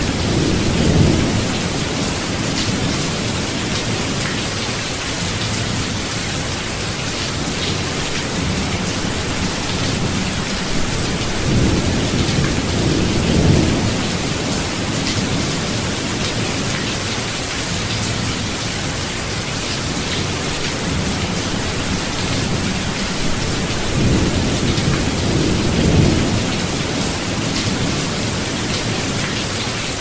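Thunderstorm: steady rain with three low rolls of thunder swelling up, one at the start, one about twelve seconds in and one about twenty-five seconds in.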